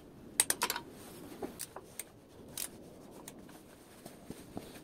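Faint, irregular clicks and light taps of hand tools, a cluster of them about half a second in and then sparser ones, as a small 1/4-inch drive tool is worked on the motorcycle's exhaust-pipe cap nuts.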